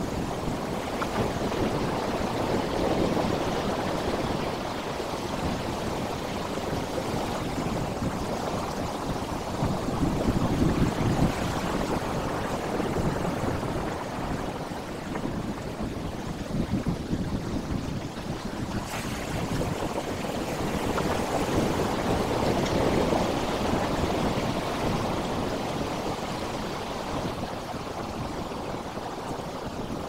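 Sea surf breaking and washing over flat rock ledges: a steady rush of water that swells and eases every several seconds as each wave comes in.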